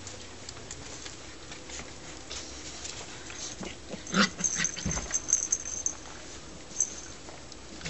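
Springer spaniel puppies whimpering, with thin high-pitched whines and one louder short yelp about four seconds in, followed by a soft low bump.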